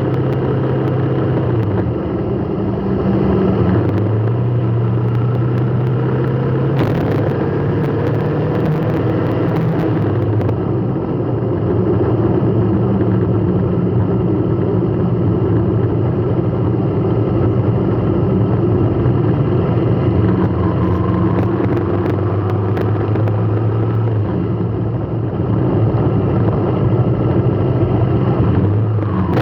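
Motor vehicle running in slow traffic: a steady low engine hum with road noise, its pitch shifting a few times as the engine speed changes.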